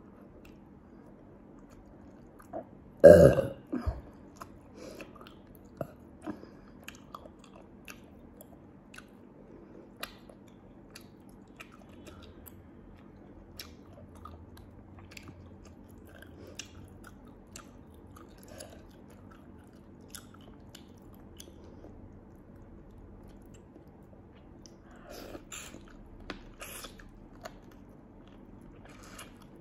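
Close-up mouth sounds of a person eating small sea snails with her fingers: scattered wet smacks, sucks and chewing clicks, with one loud burp about three seconds in.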